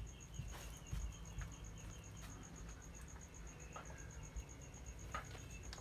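An insect, cricket-like, chirping in a fast, even, high-pitched pulse of about seven chirps a second, with scattered faint crackles from the wood fire burning under the stew pot.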